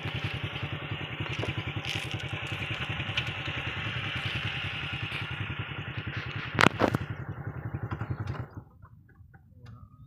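An engine running with a steady, rapid putter, which drops away suddenly about eight and a half seconds in. A single sharp click sounds shortly before it stops.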